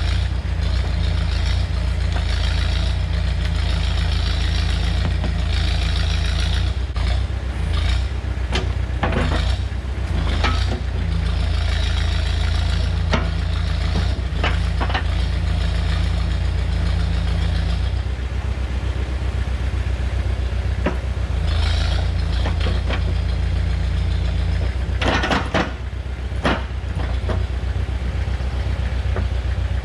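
A heavy machine's engine runs steadily, with scattered short knocks and clanks over it, mostly in the middle and again near the end.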